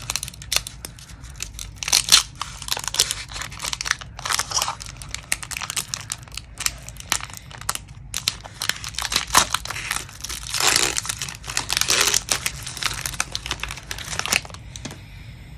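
Foil wrapper of a Pokémon TCG booster pack crinkling and tearing as it is ripped open: a run of crackles and rustles that dies away near the end.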